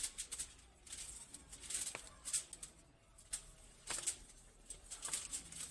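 Plant fan leaves rustling and crackling in short, scattered bursts as they are handled and trimmed at the bottom of the plants with a small sharp cutting tool.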